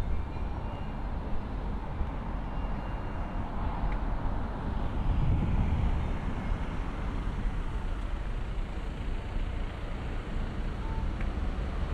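Road traffic on a town street: cars passing at a junction, a steady low rumble that swells as one vehicle goes by close about five seconds in.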